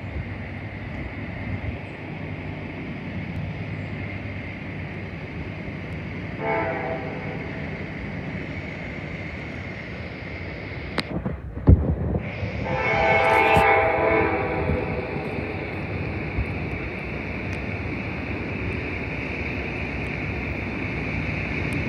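Approaching Norfolk Southern diesel freight train sounding its air horn: a short blast about six seconds in, then a longer, louder blast about halfway through, over the steady rumble of the oncoming train. A single sharp thump comes just before the second blast.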